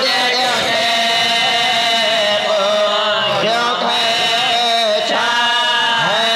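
A voice chanting a marsiya in long, held notes whose pitch wavers and bends, with no break.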